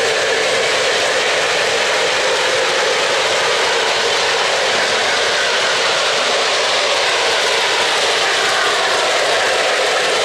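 O-gauge three-rail model trains running close by: a steady whirring rumble of metal wheels on the track and the electric motors, with a faint changing whine partway through as a locomotive passes.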